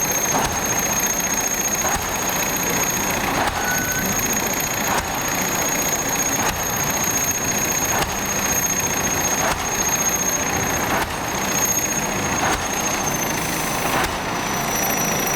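Pile-driving rig on an EO-5111B excavator, the hammer striking the pile in a regular beat about once every one and a half seconds over the steady run of the machine's engine. A thin high whine runs through it.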